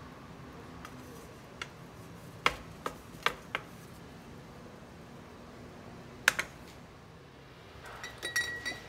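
Kitchen utensil sounds: a wooden spatula knocking and scraping against a pan as a cooked appam is lifted out, heard as a handful of sharp single taps. Near the end comes a short cluster of clinks with a brief metallic ring from a metal pot being handled.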